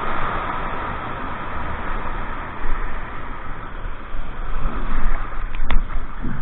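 Whitewater churning at the foot of a river weir, a loud, steady rushing with low buffeting rumbles as water splashes over the camera. There is one sharp click between five and six seconds in.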